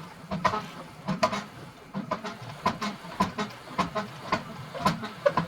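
Rhythmic clicking and clacking, a knock about every half second, from a MIG welding wire spool turning on a makeshift bolt jig as the wire is wound back onto it.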